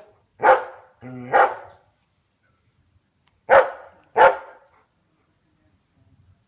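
A dog barking off to one side in short, sharp barks, two close together near the start and two more a few seconds later.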